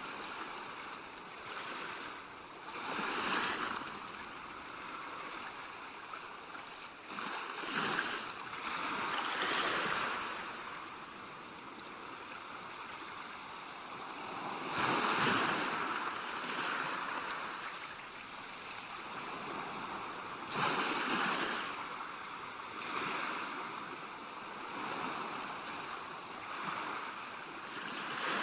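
Sea waves washing onto the shore: a steady rush of water that swells into louder breaking surges every few seconds, the loudest about halfway through and again about three-quarters of the way in.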